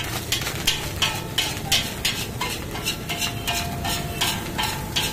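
Long-handled steel spatula scraping and tossing egg fried rice around a large black iron wok, in quick, even strokes about three a second, with short ringing tones from the metal between the strokes.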